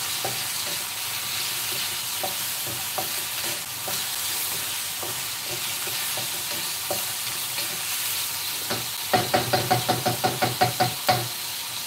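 Diced turkey sizzling in oil in a wok, stirred with a wooden spatula that scrapes and clicks on the pan. About three-quarters of the way through, the spatula knocks against the wok in a quick rattle of about seven knocks a second for a couple of seconds.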